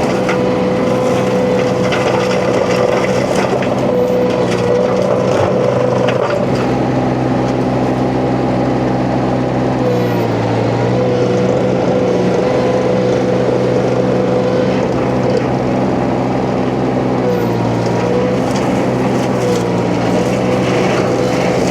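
Huayee LHY680 mini skid steer's engine running hard while its hydraulic hammer-knife flail mulcher shreds brush, with a rough shredding noise over the engine. The engine pitch shifts a few times as the cutter takes and sheds load.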